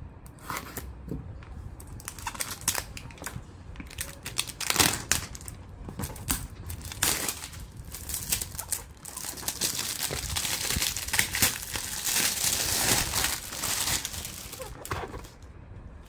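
Plastic packaging crinkling and tearing as it is cut and pulled off a product box. It starts as scattered crackles, then becomes a denser, louder run of crinkling for several seconds that eases near the end.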